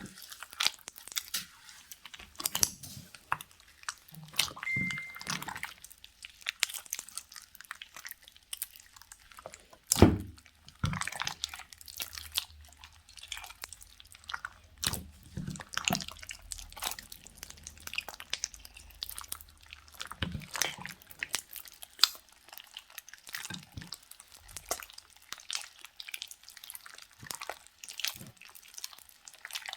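Slime being squished and worked by hand, giving scattered sticky clicks and crackles, with one louder thump about ten seconds in.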